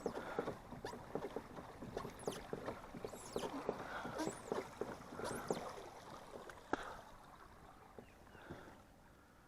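Water splashing and lapping against a kayak's hull as it moves, full of small clicks and knocks that thin out and fade about seven seconds in. Several short, high falling chirps sound over it.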